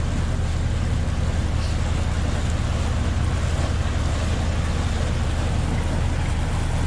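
A sailboat's engine running steadily while motoring, a constant low drone under a steady rushing hiss.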